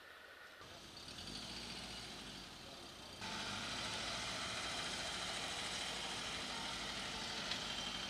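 A motor vehicle's engine running steadily, with a low hum under a broad hiss; it grows from about half a second in and jumps louder about three seconds in.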